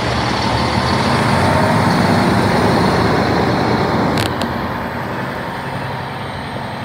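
International semi-tractor's diesel engine pulling a heavy equipment trailer past at low speed, loudest about two seconds in and fading as it moves away. Two short clicks a little past four seconds.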